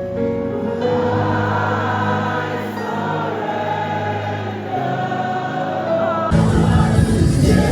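Gospel choir singing with music. About six seconds in, the sound changes abruptly and becomes louder, with a heavy bass.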